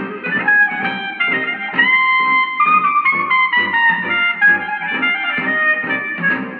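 Restored Emerson 108 antique tube radio playing music through its small speaker. The sound is thin, with little deep bass or treble, over a steady beat.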